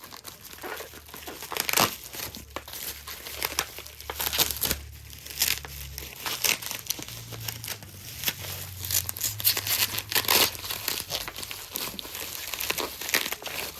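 Crumpled newspaper packing being pulled out of a shipping box and handled: a continuous run of irregular crinkles and rustles, with occasional tearing.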